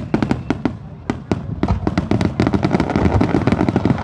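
Fireworks going off: a quick string of bangs and pops that thickens, from about a second and a half in, into a dense, continuous crackling.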